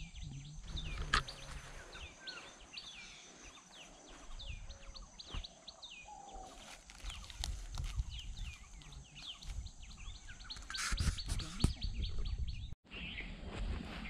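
Many small birds chirping together, short falling chirps coming several times a second. About eleven seconds in, a louder cluster of sharp clicks and knocks rises over them.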